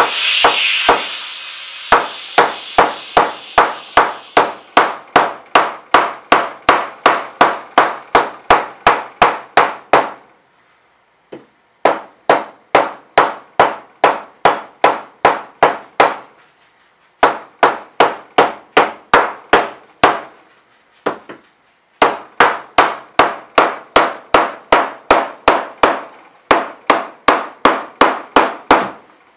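Mallet blows hammer-forming the edge flange of a 0.025-inch aluminum wing rib over a clamped form block. The strikes are steady, about two to three a second, in four runs separated by short pauses.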